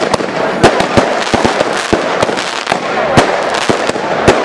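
Fireworks going off in quick, irregular succession: many sharp bangs and cracks over a continuous hiss and crackle, the loudest bang about three seconds in.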